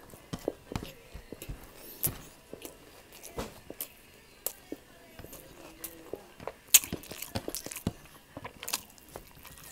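Close-up mukbang eating sounds: pork liver steak being chewed, with irregular sharp mouth clicks and smacks. The loudest click comes about seven seconds in.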